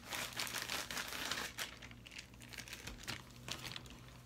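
Clear plastic packaging bag crinkling as it is handled and pulled open, densest in the first second and a half, then a few lighter crackles.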